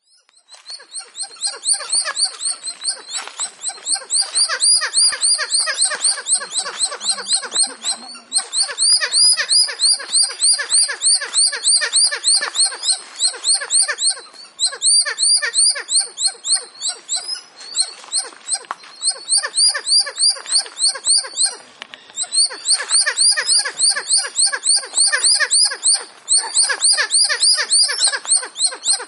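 Monkeys calling loudly: a fast, unbroken string of high, rising chirping calls, several a second, with only a few short breaks.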